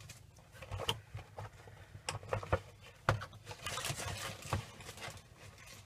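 Light rustling and scattered small clicks and taps of hands handling small craft items and their packaging.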